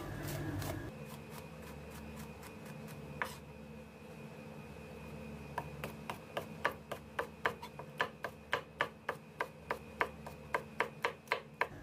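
A chef's knife slices a green bell pepper into strips on a plastic cutting board. The blade knocks the board now and then at first, then from about halfway in it chops in a quick, even rhythm of about three to four cuts a second. A steady low hum runs underneath.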